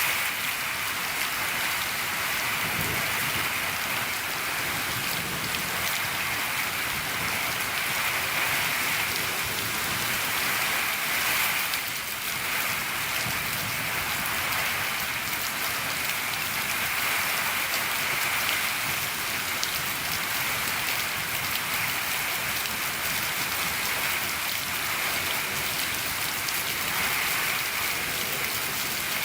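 Steady rain falling on a shed roof, an even, unbroken patter.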